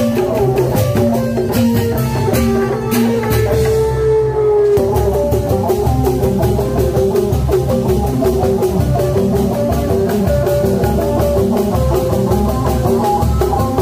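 Loud live band music played through a loudspeaker stack: a melodic line over electric guitar, bass and a drum beat, with a short break in the beat about four seconds in.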